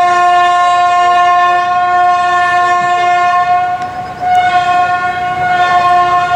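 Steam locomotive whistle blowing a long, steady, single-pitched blast. It breaks off about four seconds in and sounds again half a second later.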